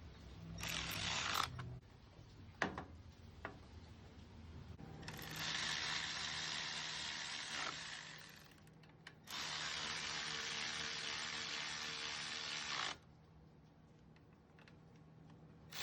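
A power tool driving bolts back in during reassembly of the diesel engine's thermostat housing and brackets. It runs briefly at the start, then for two longer stretches of a few seconds each, with a few sharp clicks in between.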